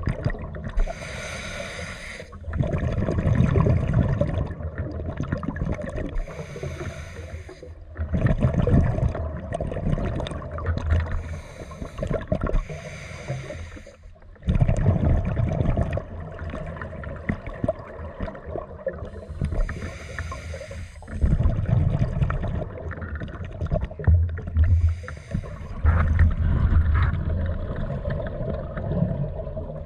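Scuba diver breathing through a regulator: each breath is a short hissing inhale followed by a longer bubbling exhale, about five slow breaths.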